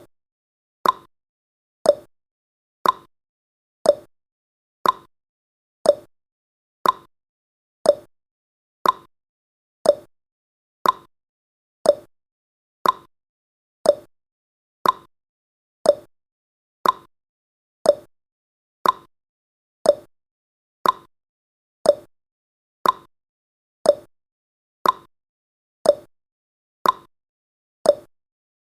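Countdown timer's ticking sound effect: a sharp tick once a second, each one dying away quickly.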